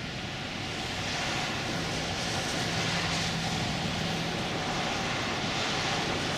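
Steady driving noise inside a moving car: a wide, even hiss of tyres and wind over a low, steady engine hum.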